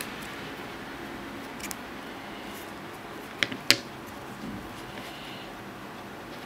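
Light plastic clicks and taps of a white plastic iPhone 4 dock being handled and set on a desk, with two sharp clicks close together about three and a half seconds in, over a steady faint room hiss.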